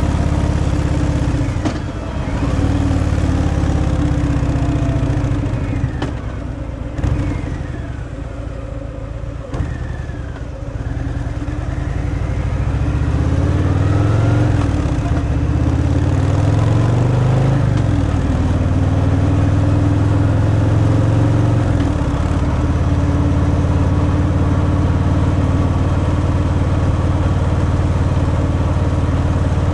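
Stock Harley-Davidson Fat Boy V-twin engine on the move. Its note drops and quiets as the throttle closes a few seconds in, then climbs in pitch several times and falls back between about 12 and 18 seconds in, and settles into a steady cruise.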